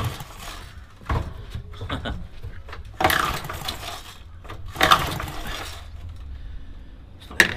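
Recoil pull-starter of a Hayter Harrier 41 lawnmower's Briggs & Stratton engine yanked several times, the engine turning over with a short whirring rush on each pull but not firing, because the spark plug cap is not fitted.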